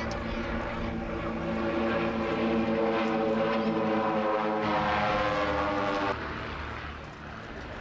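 Drone of a formation of four Pitts Special aerobatic biplanes' piston engines and propellers passing overhead. It builds to its loudest in the middle, then drops away sharply about six seconds in, leaving a fainter drone.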